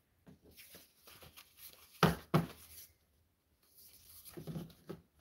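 Paper signatures and a floppy-disk cover being handled and stacked together: soft rustling and sliding of paper, with two sharp knocks about two seconds in, half a second apart, and a few small clicks near the end.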